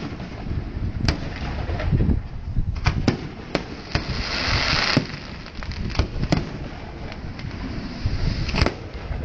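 Aerial fireworks display: shells bursting in irregular bangs, about ten in all, over a constant low rumble. About halfway through there is a hissing burst lasting roughly a second.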